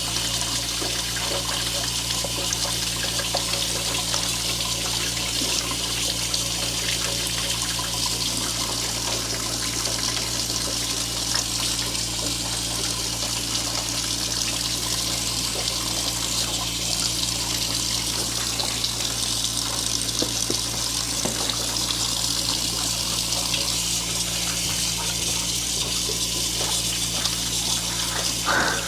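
Wastewater draining steadily out of a cut-open household drain line into a bucket, a continuous splashing trickle, with a steady low hum underneath.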